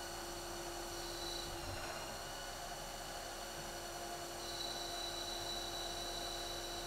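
Haas ST-10 CNC lathe cutting a part under flood coolant, heard through its closed enclosure: a steady hum with high whining tones that shift slightly in pitch, over a hiss of spraying coolant.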